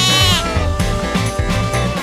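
A single quavering sheep bleat in the first half second, over steady background music with a beat.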